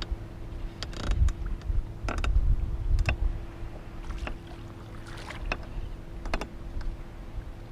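Wind rumbling on the microphone over a steady electric hum, with scattered sharp clicks and knocks, a dozen or so, from handling gear on a fishing boat.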